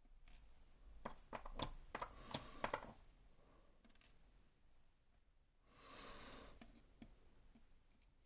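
Small metal clicks and taps from an M&C Minos lock and its parts being handled while it is taken apart, bunched in the first three seconds, then a short scraping rustle about six seconds in.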